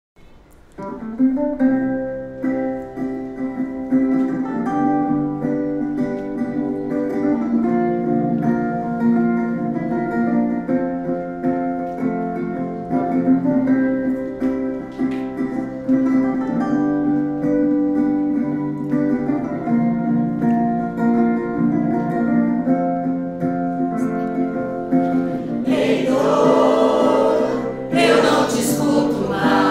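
A small mixed choir singing a song together over a musical accompaniment. The voices grow fuller and brighter from about 26 seconds in.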